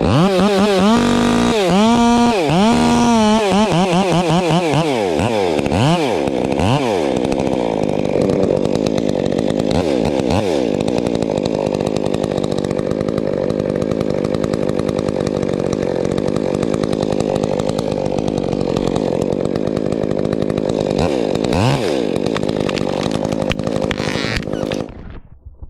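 Chainsaw engine revved up and down several times, then held at high speed for about twenty seconds with a few brief dips. It cuts off suddenly near the end.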